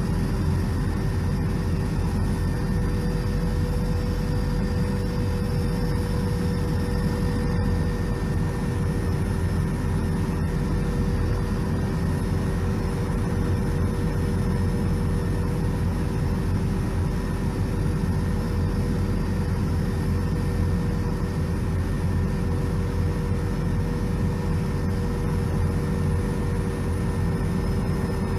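Helicopter cabin noise in flight, heard from inside a Brazilian Air Force helicopter: a loud, even drone with a few steady whining tones above it, unchanging throughout.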